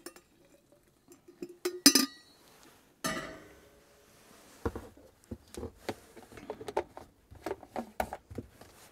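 Clinks of a stainless steel coffee pot, two sharp metallic knocks with a short ring about two and three seconds in as it is set back down on the gas stove's metal grate. They are followed by a run of small clicks and scrapes as a thermos is capped and set down.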